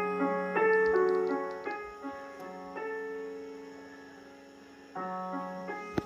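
Piano music: a slow run of struck chords, each ringing and fading, then a long decay and a new chord about five seconds in.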